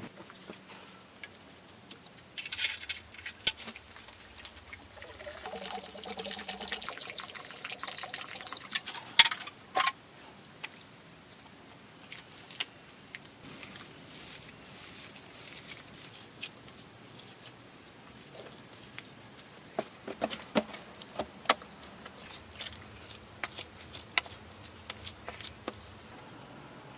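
Scattered light clicks and knocks, as of stones or wood being handled, over a steady high-pitched insect call that drops out for a few seconds and comes back.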